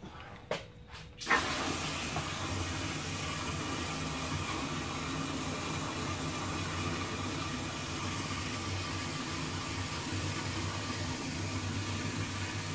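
A garden hose pours a steady stream of water into a half-full plastic conical fermenter, splashing into the water already inside. The flow starts suddenly about a second in, after a couple of light clicks.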